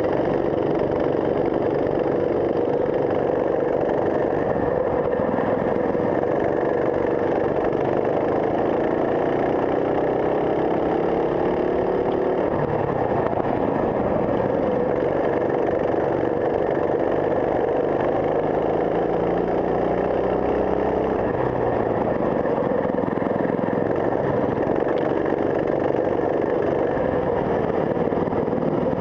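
Racing kart engine running hard, its pitch climbing steadily through two long stretches of acceleration and dropping sharply as the driver lifts, about halfway through and again about two-thirds through.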